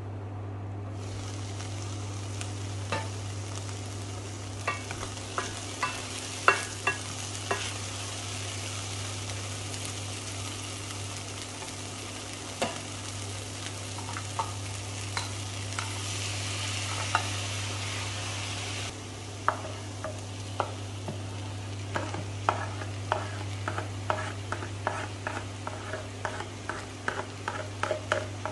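Vegetables sizzling in a stainless steel pot as they are stirred, with sharp clinks and scrapes of the utensil against the pot and a steady low hum from the electric cooktop. The sizzle starts about a second in and cuts off about two-thirds of the way through, after which quick clinks and knocks come in a dense run.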